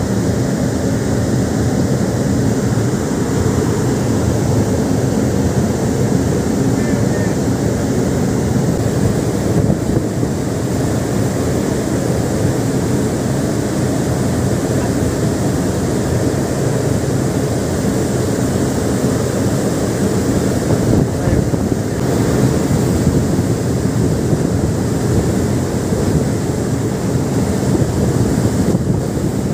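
Steady wind buffeting the microphone over the wash of the sea along a moving ship's hull, with a low steady drone underneath.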